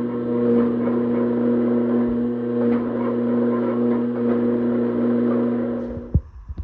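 Hydraulic forging press running with a steady hum while it squeezes a hot steel ingot. About six seconds in the hum cuts off and a sharp knock follows.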